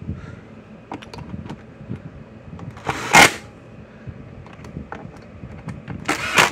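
Workbench handling of a red plastic fence charger case as its screws are put back in: small scattered clicks and knocks, with two short loud scraping rushes, one about three seconds in and one near the end.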